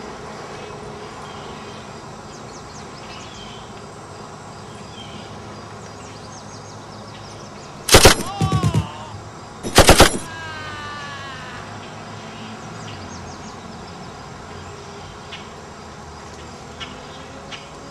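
Two short bursts of automatic M16 rifle fire about two seconds apart, each a rapid string of shots followed by a brief falling ringing tone.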